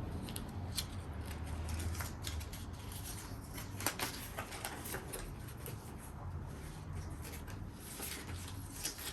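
Faint rustling and scattered small clicks of iPad packaging paperwork (manual, sticker sleeve, warranty leaflet) being handled, over a steady low hum.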